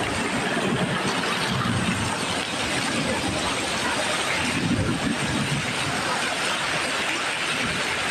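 Heavy hail falling: a dense, steady noise of hailstones striking the patio cover, paving and lawn and splashing into a swimming pool.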